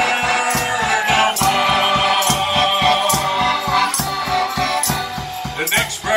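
Accordion playing a lively instrumental tune in steady chords over a regular bass beat, with a hand shaker rattling along in time.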